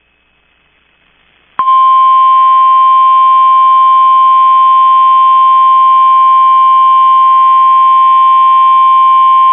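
Emergency alert attention tone: NOAA Weather Radio's single steady 1050 Hz warning alarm tone, loud, starting abruptly about one and a half seconds in after faint hiss. It signals that a severe weather alert message follows.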